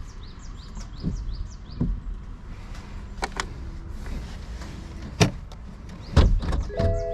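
A series of separate knocks and thumps on the body of a 2023 Toyota GR Supra, about six in all, the loudest and deepest one about six seconds in.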